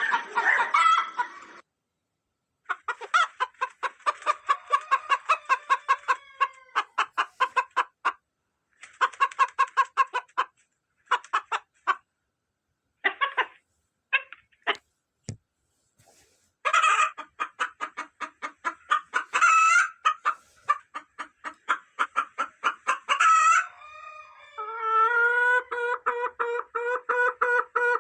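Hens clucking in quick runs of short calls, cut into separate bursts with silent breaks between them. There is a sharp click about halfway through, and a long drawn-out pitched call near the end.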